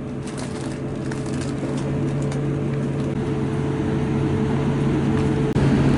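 Steady low hum of a running vehicle under a rushing noise that slowly grows louder, stepping up near the end.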